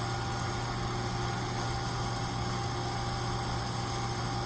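Steady low mechanical hum with a few faint steady tones above it, unchanging throughout.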